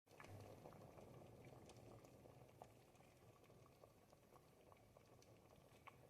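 Ribollita, a thick Tuscan bread-and-vegetable soup, bubbling faintly in a pot over the fire, with a steady run of small soft pops.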